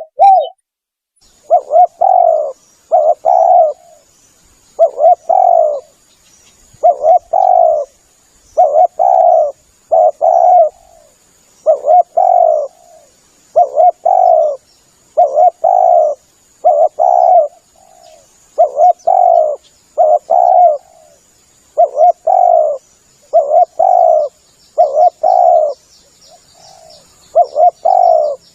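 Spotted dove (tekukur) cooing over and over: a low, hoarse call of repeated notes in twos and threes, each phrase about half a second long, with short gaps between phrases. It is a lure call for drawing in wild spotted doves.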